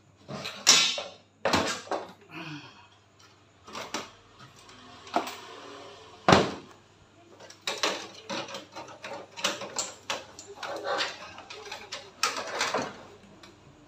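LG 43UH650T TV's plastic back cover being handled and laid onto the set's metal chassis: an irregular run of knocks, clacks and rattles, the loudest about six seconds in, over a low steady hum.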